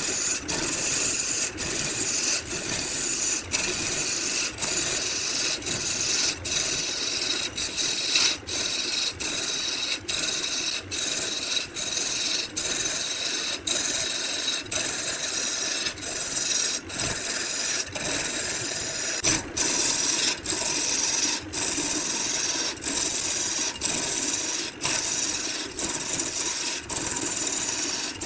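Wood being abraded with a steady rasping hiss, interrupted by short dips about once a second.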